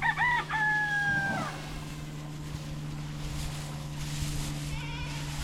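Livestock bleating: one bleat about a second and a half long, a couple of short notes and then a held note that slides slightly down, followed near the end by a fainter, wavering bleat. A steady low hum runs underneath.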